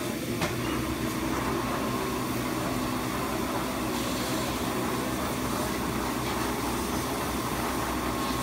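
Steady mechanical hum and hiss of running machinery, with a faint click just after the start.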